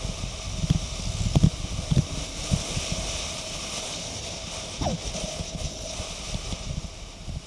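Wind buffeting the microphone of a camera on a moving bicycle: irregular low thumps over a steady hiss. A short falling tone comes about five seconds in.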